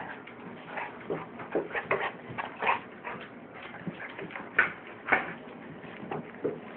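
Golden retrievers whimpering and yipping in short, excited bursts, with scuffling as they crowd close on a tile floor. Two louder sharp sounds come about two thirds of the way through.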